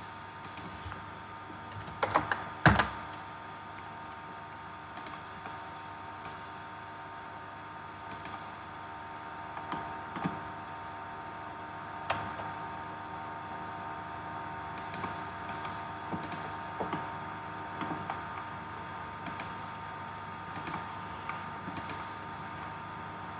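Scattered keystrokes and clicks on a computer keyboard and mouse, with a louder cluster of knocks about two to three seconds in, over a steady hum.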